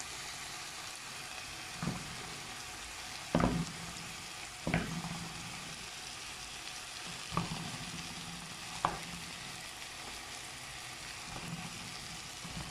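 Sausages and onions sizzling steadily in a frying pan, with a handful of sharp clicks as a metal fork pricks the sausages and knocks against the pan.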